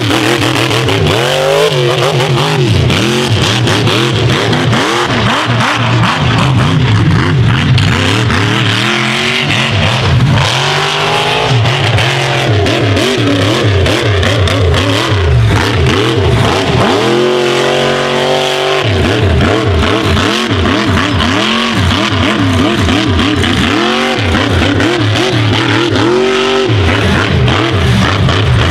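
1520-horsepower mega truck engine at full throttle, revving up and down again and again as the truck charges across the track on paddle tyres. Near the end it holds one long high rev that drops off suddenly.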